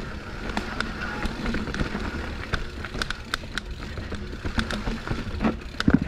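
Mountain bike rattling down a rocky technical trail: tyres rolling over rock and dirt, with many irregular sharp clacks and knocks from the bike, under a steady low rumble of wind on the camera microphone.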